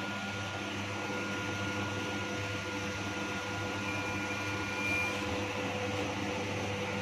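FR900 continuous band sealer running with its conveyor motor and cooling fan, a steady hum with several held tones, while a bag is fed through to be heat-sealed. A faint high tone sounds for just over a second about four seconds in.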